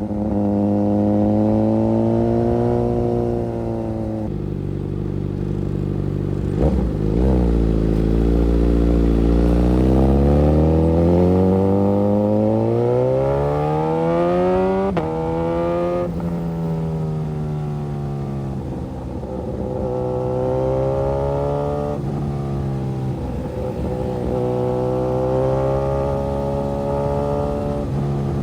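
Suzuki GSX-S1000's 999 cc inline-four engine under way, its revs rising and falling with the throttle and gear changes. In the middle the engine climbs in pitch for about eight seconds, then drops suddenly at an upshift, before easing back to a cruise with smaller rises and dips.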